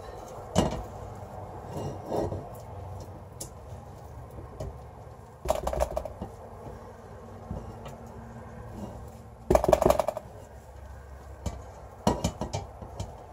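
A spatula scraping thick soap paste out of a pot, with scattered knocks and scrapes against the pot and bowl rims. The clatter comes in short clusters, the loudest about ten seconds in.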